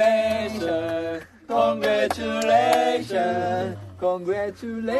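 Men's voices singing a cappella, holding long notes, with a brief break about a second and a half in.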